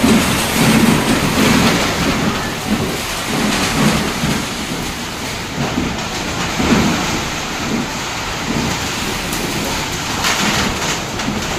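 Heavy rain pouring down and drumming on a corrugated metal roof, a loud steady hiss with irregular low rumbles underneath.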